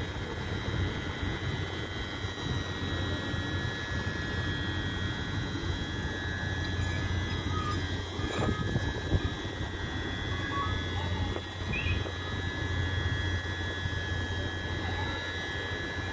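E68000-class electric locomotive standing with its pantograph up, its equipment running with a steady low hum and a steady high-pitched whine.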